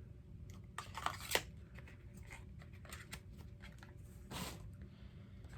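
Faint handling of cosmetic product packaging: scattered light clicks and rustles, with a short rustle about four and a half seconds in.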